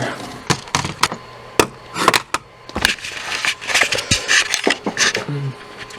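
Handling noises: a string of sharp clicks and knocks, uneven in timing, with rustling in between.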